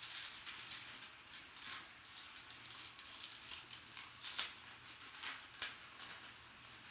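Packaging rustling and crinkling as an item is unwrapped by hand, with irregular crackles and a sharper crackle a little past the middle.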